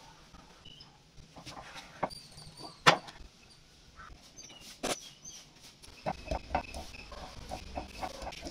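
Kitchen knife cutting a dragon fruit and knocking on a wooden chopping board: a few sharp knocks, the loudest about three seconds in, then a run of smaller clatters with a low rumble in the last couple of seconds. Birds chirp faintly in the background.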